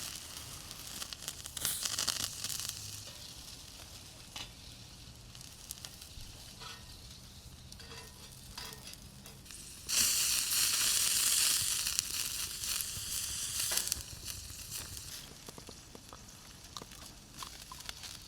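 Food sizzling while cooking over a campfire, with scattered small clicks and crackles. About ten seconds in, a sudden loud burst of sizzling begins, lasts some four seconds, then eases off.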